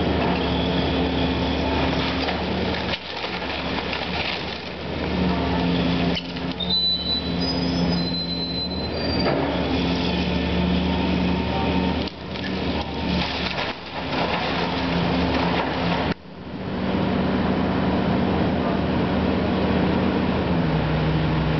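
Hydraulic excavator demolishing a wood-frame house: its diesel engine runs steadily, its pitch shifting as the hydraulics work, over a continuous noisy crunch and clatter of timber debris.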